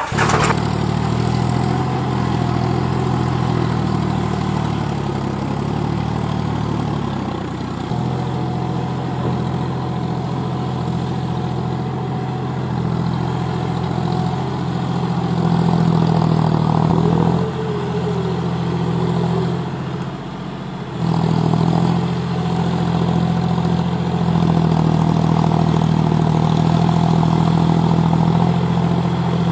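Tractor engine idling steadily with a low drone. The drone dips briefly about two-thirds of the way through, then resumes.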